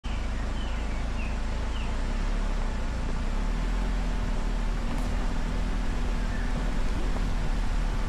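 Toyota Veloz driving along a bumpy dirt trail: a steady low rumble of engine and road noise.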